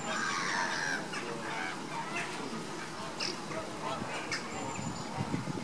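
A flock of Caribbean flamingos calling with goose-like honks, several calls overlapping in the first second, then scattered short calls.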